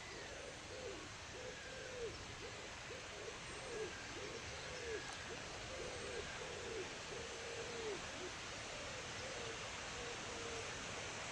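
A bird giving a long run of low hooting notes, about two a second, each rising and falling slightly in pitch, fading out near the end, over a steady background hiss.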